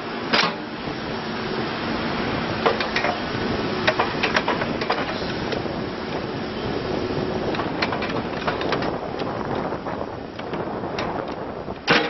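Case 580N backhoe loader's 84 hp diesel engine running steadily while the hydraulics work the backhoe boom and bucket. Several sharp clanks sound from the moving arm and bucket, the loudest about half a second in and again near the end.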